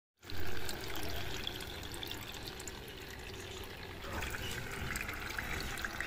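Water from a pump-fed 'magic tap' fountain falling in a thin stream onto pebbles in a bowl, a steady splashing trickle, briefly louder at the very start.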